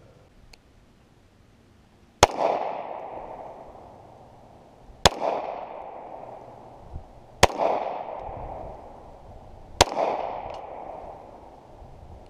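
Gunshots fired one at a time, about two and a half seconds apart: four sharp cracks, with a fifth just as it ends, each followed by an echo that dies away over a second or so.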